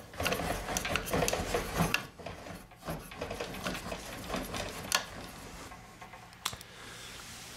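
Handling noise from the saw's plastic and metal fittings being touched and moved: a dense clicking rattle for about two seconds, then a few separate clicks and knocks.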